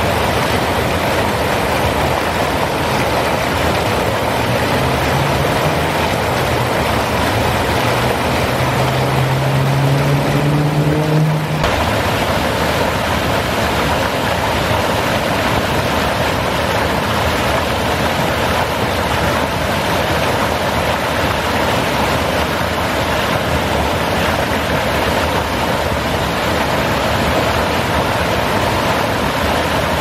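Rain-swollen lake water pouring over a concrete spillway and weir into churning white water, a steady, loud rush of falling water. A low hum that rises slightly in pitch runs for several seconds and stops abruptly near the middle, where the rush shifts a little in tone.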